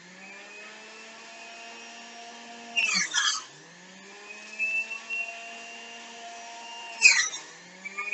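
Electric juicer running with a steady motor hum. Twice, about three seconds in and again about seven seconds in, there is a loud grinding burst as produce is pushed into it, and the motor's pitch drops under the load and then climbs back.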